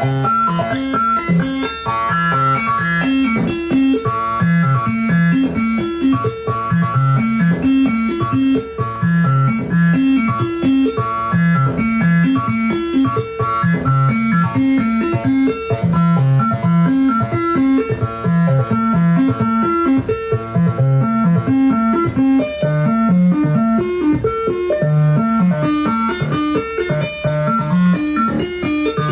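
Make Noise 0-Coast semi-modular synthesizer playing a fast arpeggiated pattern of repeating notes, sequenced by a Midicake ARP arpeggiator, over a steady held high tone.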